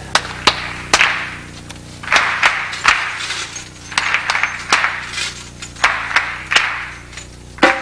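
Hand drum struck in a rhythm, with an audience clapping along in time in repeated bursts.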